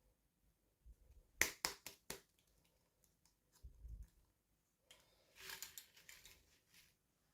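Plastic toy packaging being handled: about four sharp clicks around a second and a half in, a dull low bump near four seconds, then a stretch of crinkling rustle.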